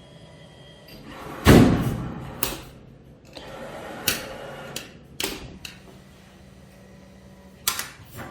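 Claw machine in play: a run of sharp knocks and thuds from the claw and prizes, the loudest about a second and a half in, with a low steady hum in the second half.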